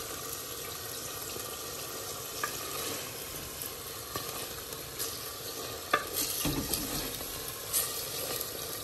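Minced meat frying with onion and ginger-garlic paste in a pot, sizzling steadily while it is stirred; the mince is still wet with its own water. A spoon clicks against the pot a few times, loudest about six seconds in.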